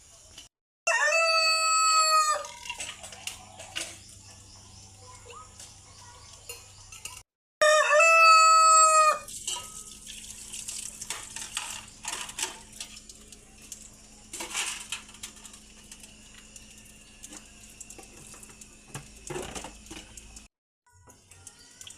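A rooster crowing twice, two loud crows several seconds apart, each under two seconds long. Between and after them, only faint scattered clicks and light background noise.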